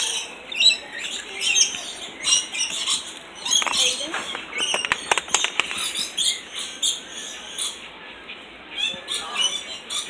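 Rainbow lorikeets chattering in short, high squawks and chirps while feeding on nectar, with a quick run of sharp clicks about five seconds in.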